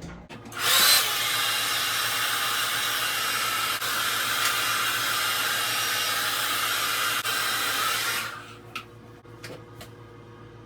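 Handheld hair dryer switched on about half a second in, running steadily with a hissing rush of air, then switched off about eight seconds in. It is blowing on a freshly applied layer of wig lace glue to dry it.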